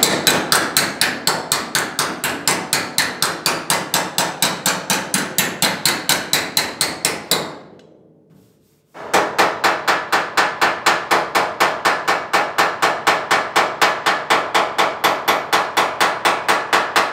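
Body hammer striking a Rover's sheet-metal wing against a hand-held dolly: quick, even hammer-on-dolly taps, about five a second, in two long runs with a short pause about halfway through. It is the edge of the wheel arch being worked to a tighter corner.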